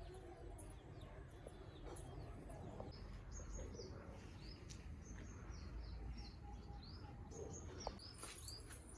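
A small bird chirping: short high notes, each falling in pitch, repeated about twice a second from a few seconds in, over a faint low rumble.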